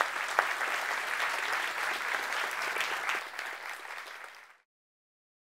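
Audience applauding, a dense patter of many hands clapping that thins out and then cuts off suddenly about four and a half seconds in.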